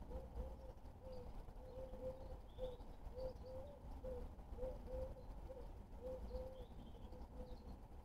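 A pigeon cooing off-camera in a run of short, low notes, about two a second. Faint high chirps of small birds come in now and then.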